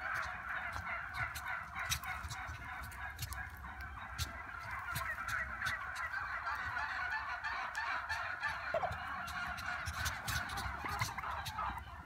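A large flock of domestic turkeys calling together: a steady, dense chorus of overlapping calls, with scattered clicks.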